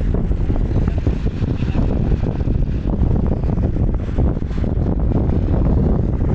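Wind buffeting the microphone: a loud, low rumble that flutters unevenly and never lets up.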